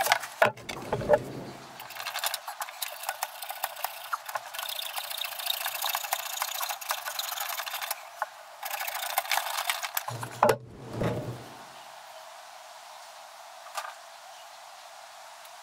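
Clicking, scraping and rattling of hands working on the plastic fittings at the base of a Pentair FNS Plus DE pool filter as it is taken apart. There are short grunts of effort about a second in and again about ten seconds in.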